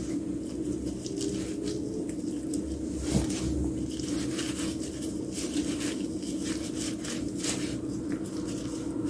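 Gloved hands tossing cut cucumbers and garlic chives in thick chili seasoning in a stainless steel bowl: irregular wet squelches and patters as the pieces are lifted and dropped, over a steady low hum.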